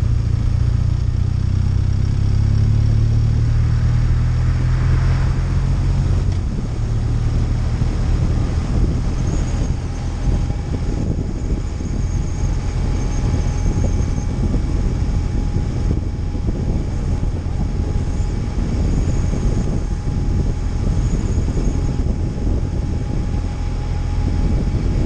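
Touring motorcycle engine and road noise while riding. The engine is strongest for the first six seconds pulling away, then eases to a steady cruising drone with wind rush.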